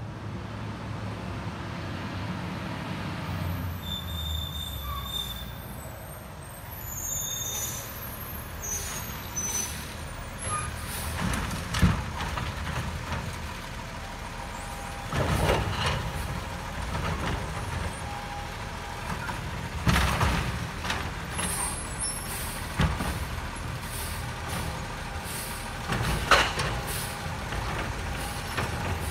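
Peterbilt 520 garbage truck with a Labrie Automizer automated side-loader running as it draws up to a curbside cart, with high squeals as it stops and air-brake hisses. While it stands at the cart, its engine runs under load and several loud bangs and hisses sound as the lifting arm grabs, dumps and sets the cart back down.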